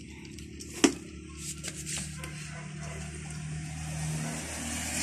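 Persian kittens eating dry kibble from a plastic feeder, with faint small clicks and one sharp knock about a second in. A low steady hum runs through the middle.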